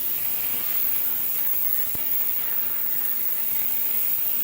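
Steady hiss with one light click about two seconds in, as small parts of a model locomotive truck are handled.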